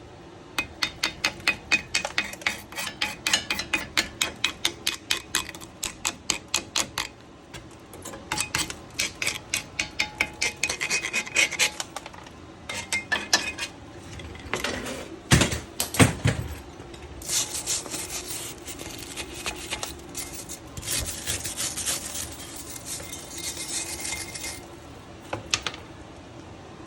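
A rusty brake rotor being scrubbed by hand with an abrasive, in quick back-and-forth rasping strokes about three a second. The strokes stop briefly twice, there are two louder knocks about halfway through, then longer continuous scraping strokes follow near the end.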